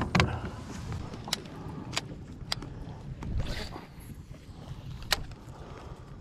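A lure cast with a fishing rod from a kayak: a brief swish as line runs out, about three and a half seconds in. Around it come a few sharp clicks of reel and rod handling over a low rumble of handling noise.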